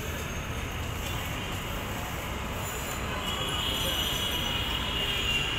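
Steady street background noise, with a sustained high-pitched squeal setting in about three seconds in.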